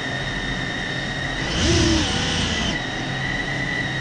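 Small quadcopter drone's electric motors and propellers spinning at idle with a steady whine while the drone sits on the floor. About halfway through, a brief throttle blip makes them louder and higher for about a second before they settle back.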